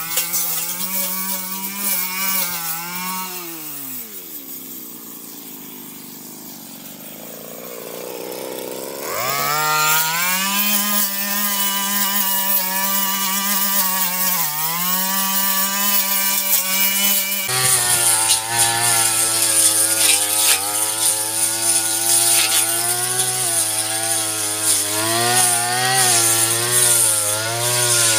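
Brush cutter engine running at high revs. It is throttled back to idle about three seconds in and revved up again near the middle, with a short dip later. About two-thirds through, its note drops abruptly to a lower, steady pitch with an added hiss.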